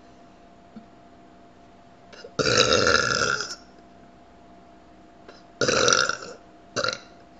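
A young woman burping loudly three times: a long burp about two and a half seconds in, a shorter one near six seconds, and a brief one right after it.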